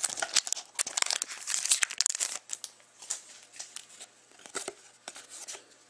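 Foil trading-card pack wrapper torn open and crinkled, dense at first, then thinning to scattered rustles and clicks as the cards inside are slid out and flipped through.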